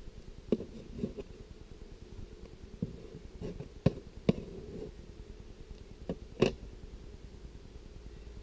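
Metal hive tool scraping and knocking brace comb off the wooden top of a beehive crown board: a string of irregular sharp scrapes and taps over a steady low hum.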